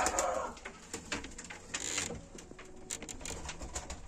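Pigeons cooing in a loft, the coo fading out within the first half second. It is followed by quieter scattered clicks and rustles.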